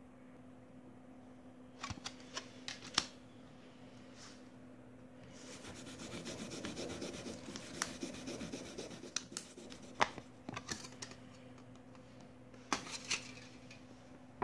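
Thin aluminium beer-can sheet handled on a wooden floor: scattered crinkly clicks, and a few seconds of rubbing in the middle as fingers press and rub the sheet flat. A steady low hum runs underneath.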